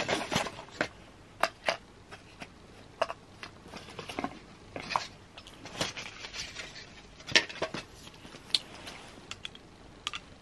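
Irregular clicks and taps of hands handling small objects close to the microphone, scattered through the whole stretch with a few sharper knocks.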